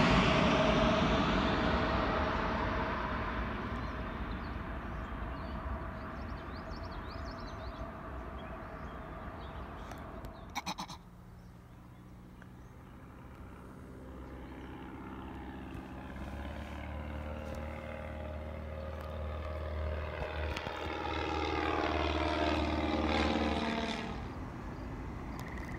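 A low business jet passing overhead, its engine noise fading away over about ten seconds. After a sudden cut, a small single-engine propeller plane's engine buzz builds up and passes, its pitch falling before it drops away.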